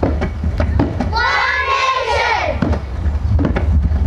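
Children's voices and a crowd, with one high voice calling out about a second in over a series of short thumps.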